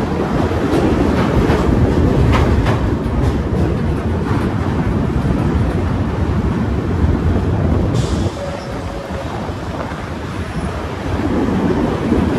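Passenger train running on the rails: a steady rumble of wheels and carriage, with a few faint knocks in the first few seconds. The noise dips a little about eight seconds in and comes back up near the end.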